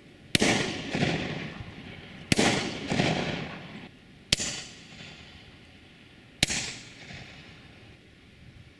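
Shotgun shots heard from about 150 yards: four sharp reports about two seconds apart, each followed by a rolling echo.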